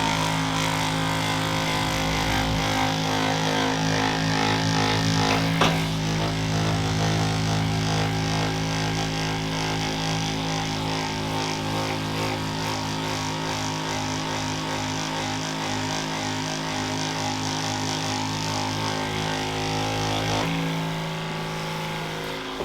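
Handheld electric massager running steadily against the back, a constant motor drone with a single click about six seconds in; its sound changes about twenty seconds in as the deepest part of the hum drops away.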